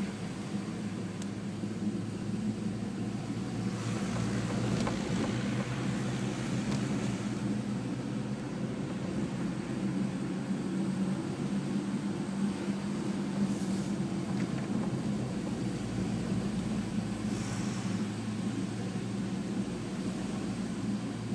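Steady low engine drone and road noise heard inside a car's cabin as it drives slowly behind a tractor.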